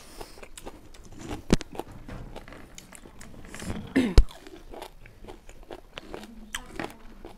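People biting into and chewing raw lemon slices, a string of small crunching and mouth clicks, with two sharper knocks about one and a half and four seconds in.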